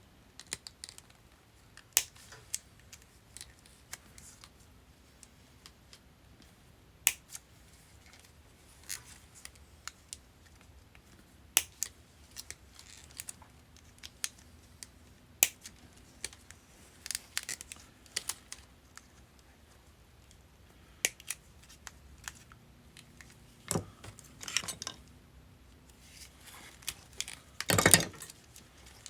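Scattered sharp snips and cracks as brittle 40-year-old hard plastic sheathing is cut and pried off a Honda wiring harness, with a longer, louder crackle near the end.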